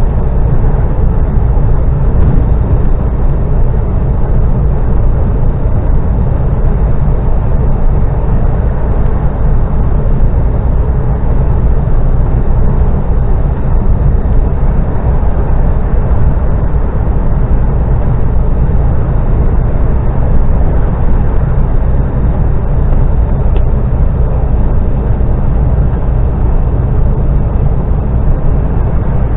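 Steady road and engine rumble inside a moving car's cabin, heavy and low, without letting up.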